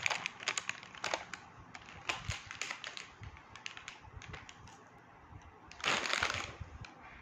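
Plastic popcorn packet crinkling as a child's hand picks popcorn out of it: a run of sharp crackles, then a louder, longer rustle about six seconds in.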